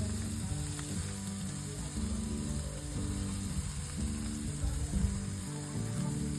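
Food sizzling on a grill, a steady hiss, under background music with low held notes.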